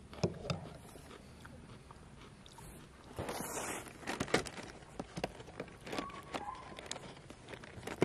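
Chewing a mouthful of cereal, with small crunching clicks, and a rustle of the cardboard cereal box being picked up and handled about three seconds in.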